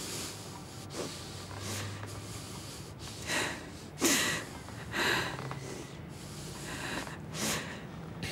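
A person breathing hard and unevenly through the nose, a sharp breath about every second or so, in an agitated, tense argument.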